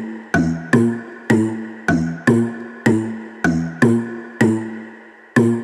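Background music: a keyboard playing repeated chords, struck about twice a second, each one ringing and dying away.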